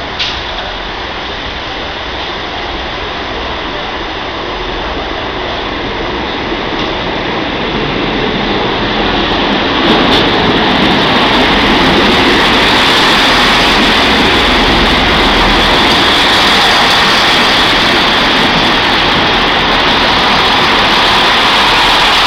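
Two coupled Chiltern Railways Class 165 diesel multiple units arriving at a platform. The rumble of engines and wheels grows from about a third of the way in, then stays loud as the carriages run slowly past.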